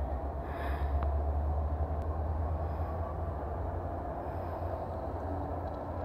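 Freight cars, covered grain hoppers among them, rolling slowly along a rail-yard track during shunting. Their wheels on the rails make a steady low rumble.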